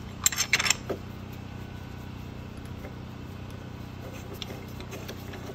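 A few quick ratchet clicks in the first second as the upper motor mount bolt is tightened, then a steady low hum.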